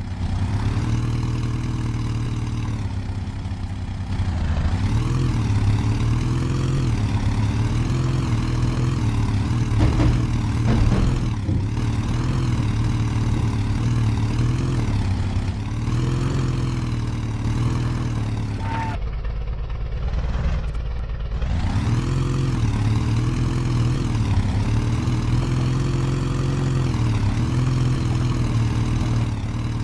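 Off-road 4×4 engine running under load, its pitch rising and falling as the throttle is worked, easing off for about two seconds near the two-thirds mark before picking up again.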